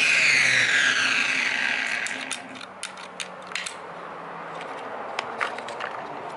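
Black & Decker 14-inch corded string trimmer's electric motor winding down after the trigger is let go, its whine falling steadily in pitch and fading over about two seconds. Then a string of sharp plastic clicks as the trigger is worked against the microswitch.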